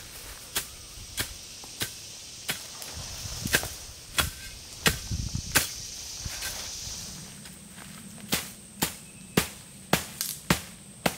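Tent stakes being hammered into the ground: a steady run of sharp knocks, roughly one and a half a second, with a pause of a couple of seconds past the middle.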